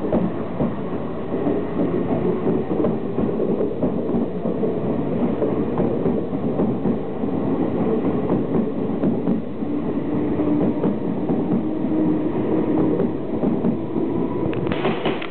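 JR East 253 series Narita Express electric train pulling out of the station and running past, with wheels clattering over the rails and a steady hum underneath.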